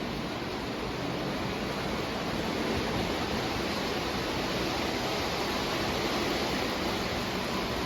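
O gauge model train running around the layout's track: a steady rumbling noise that rises slightly about two and a half seconds in.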